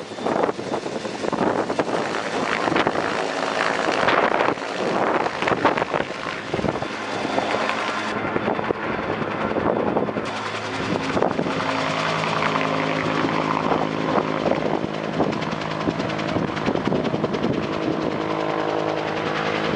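Helicopter flying overhead with a bucket slung beneath it, its rotor and engine making a steady drone that settles into an even hum about halfway through. Wind buffets the microphone in the first half.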